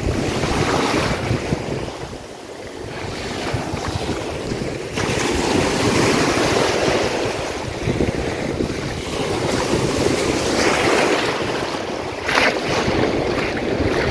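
Sea surf: waves breaking and washing up the beach, rising and falling in surges, with wind buffeting the microphone.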